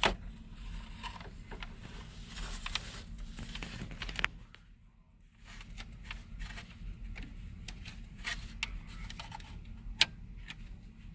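Plastic dash trim being worked loose by hand: scattered small clicks, creaks and rattles as the clips behind the panel are pried at, with one sharp click about ten seconds in.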